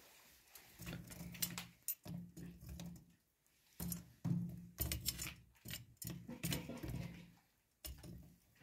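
Metal tongs clinking and scraping against walnuts, coals and the metal stove as walnuts roasting in a charcoal stove are turned, in irregular clusters of sharp clicks and clatters.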